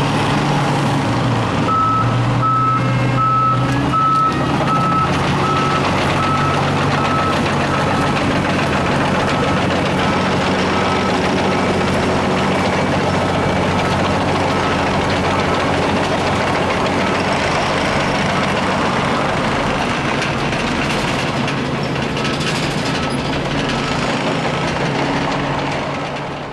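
Wirtgen W100 Fi cold milling machine's diesel engine running steadily under a constant grinding noise of heavy plant at work. A reversing alarm beeps steadily for the first several seconds, then fades away, and the whole sound fades out near the end.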